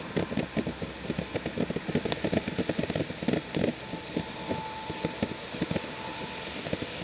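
A Fish Out of Water firework fountain burning, with a steady hiss and a dense run of rapid crackling pops. The crackle thins out after about four seconds as the fountain burns down.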